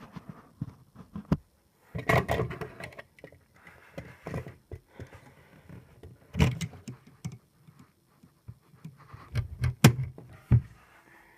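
Handling noise: irregular clicks, knocks and clatter of plastic Lego pieces being clipped together while the phone is set down and moved against the table, with the sharpest knock about ten seconds in.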